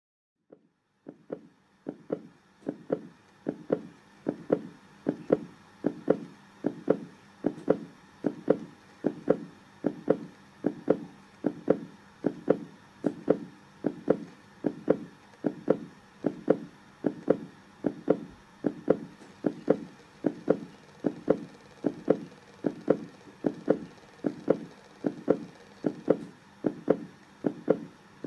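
Heartbeat sound effect: steady, regular low thumps a little under two a second, fading in over the first few seconds.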